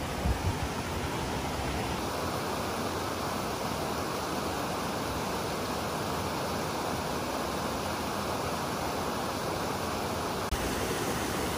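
Mountain river rushing steadily over rocks and small cascades, with a brief dropout near the end.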